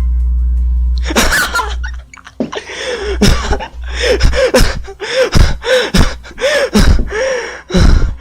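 Music with a heavy bass stops about a second in. A person then coughs and cries out over and over, a burst roughly every two-thirds of a second, each cry rising and falling in pitch.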